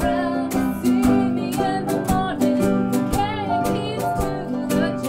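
A small band playing acoustic music: strummed guitar keeping a steady beat of about four strokes a second, with a wavering melody line on top.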